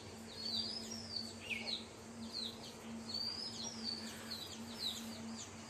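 Small birds chirping: many short, high, downward-sliding chirps repeating over and over.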